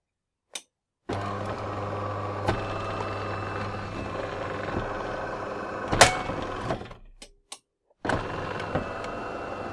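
DeLonghi ESAM 4500 bean-to-cup espresso machine working through its wait cycle after a cappuccino: an internal pump or motor runs with a steady hum and a sharp click near the middle. It stops about seven seconds in, gives a few single clicks, and starts running again about a second later.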